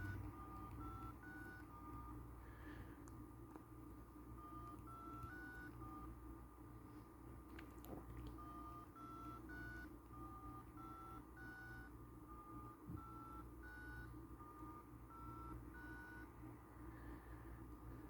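An iPhone 6s ringtone playing faintly from the phone's speaker: short phrases of high electronic notes stepping upward, repeated every couple of seconds.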